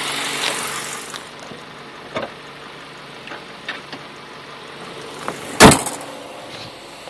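A car hood is slammed shut with one loud bang about five and a half seconds in, after a few light clicks and handling knocks. The engine idles faintly underneath.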